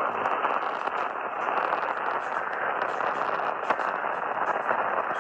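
Radio static between broadcast messages: a steady hiss with faint scattered crackles, cut off above the upper mid-range like a narrow-band radio signal.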